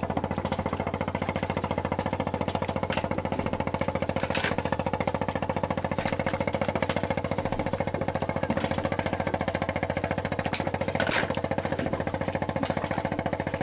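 Boat's diesel engine running steadily with a rapid, even pulsing and a steady hum, with a couple of short hisses about four and eleven seconds in.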